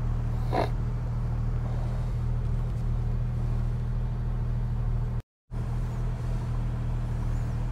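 1997 Jeep Wrangler TJ engine idling steadily at about 800 RPM through its new exhaust system, heard from inside the cab. The sound cuts out completely for a moment a little after five seconds in.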